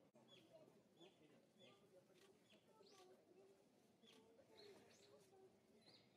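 Very faint background birdsong: a small bird chirping over and over, about once or twice a second, each chirp a short downward note, with a low wavering call underneath.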